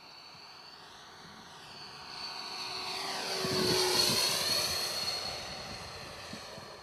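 Radio-controlled SAAB J32 Lansen model jet making a pass: its high, steady whine and rush of air swell to a peak about four seconds in, then fade as it flies away.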